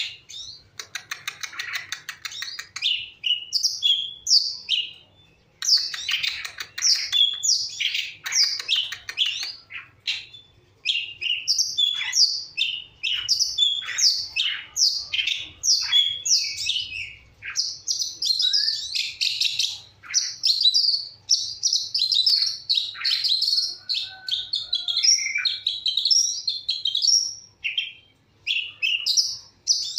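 Long-tailed shrike (cendet) singing: a varied run of quick chirps and twitters, with a harsh buzzy stretch about a second in and a denser, unbroken warbling passage in the latter half.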